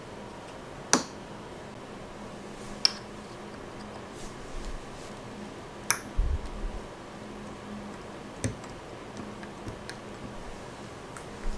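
A handful of sharp clicks and light taps a second or more apart, from a hand-towel holder being handled and fitted into place, over a faint steady hum.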